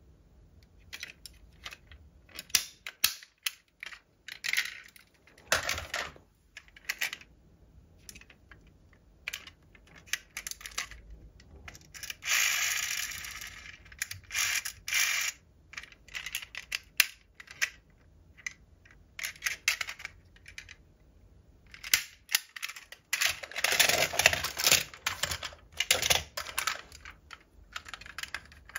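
Fingernails and fingers handling small diecast metal model cars: a scattered run of sharp clicks and taps, with two longer stretches of continuous handling noise, about twelve seconds in and again around twenty-four seconds.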